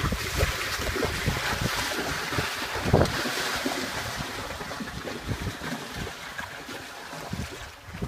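Horses splashing in shallow lake water, one pawing the water with a front hoof, with a louder splash about three seconds in. Wind buffets the microphone.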